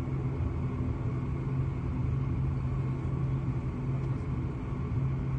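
Steady low rumble inside an airliner's cabin as it taxis after landing: engine noise and the wheels rolling on the tarmac.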